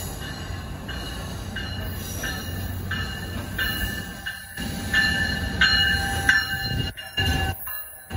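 Amtrak California bilevel passenger train pulling into the platform, cab car first: a steady low rumble of the rolling train with repeated high metallic squeals from about two seconds in as it slows.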